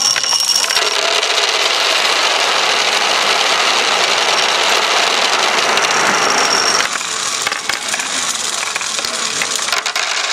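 A dense, continuous clatter of many plastic ball-pit balls raining down and piling up, easing off a little about seven seconds in.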